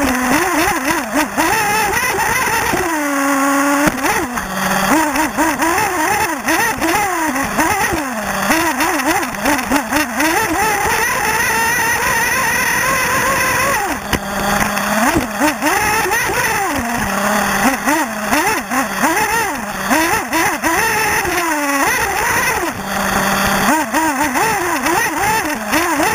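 Alpha Dragon A830 nitro engine of a 1/8-scale RC buggy, heard close up from the car itself, revving hard and dropping off over and over as the car accelerates and brakes around the track. It falls briefly to a low steady note a few seconds in and again near the end, and holds high for a few seconds mid-way.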